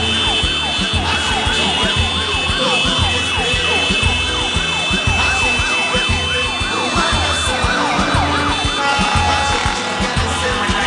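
A siren yelping, its pitch sweeping up and down fast, about three times a second, over music with a steady beat and bass.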